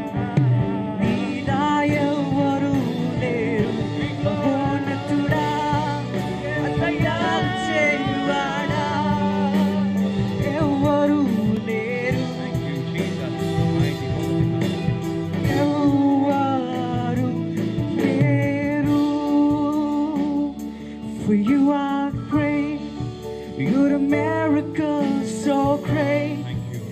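Live worship song: male voices singing into microphones over a band with electric guitar and keyboard.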